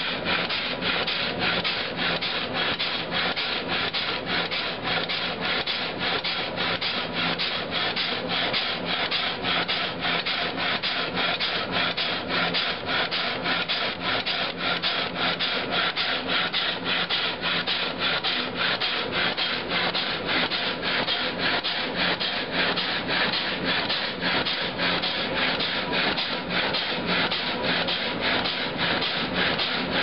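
Water-powered up-and-down sash saw cutting a log, the blade rasping through the wood on each stroke in a fast, even rhythm.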